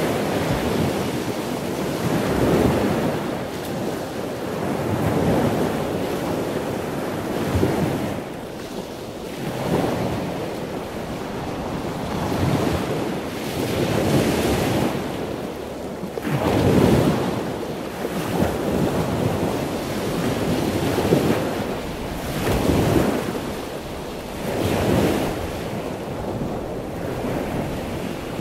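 Wind buffeting the microphone over choppy sea water washing around a boat, in rough swells that rise and fall every couple of seconds.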